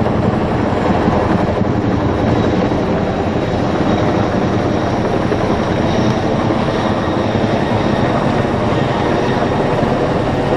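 Military helicopters flying overhead: loud, steady rotor and engine noise with a rapid low pulsing.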